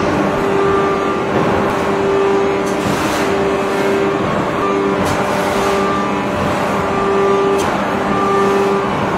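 A 3000-ton open-die hydraulic forging press working a red-hot steel shaft: a loud hydraulic hum that cuts out and restarts about once a second with the press strokes, with a few sharp knocks.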